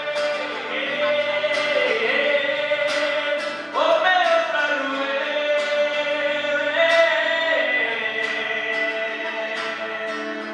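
A man singing long held notes into a microphone over a strummed acoustic guitar, with fresh phrases starting about four seconds in and again near seven seconds.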